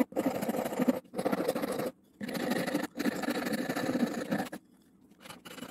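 Steel hand file scraping over the wooden bowl of a hand-carved ladle, with quick back-and-forth strokes in four runs of about a second each, broken by short pauses, stopping about four and a half seconds in.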